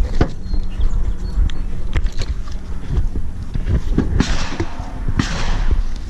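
Footsteps and handling knocks while walking, with irregular low thumps, a few sharp clicks and two scuffing hisses about four and five seconds in.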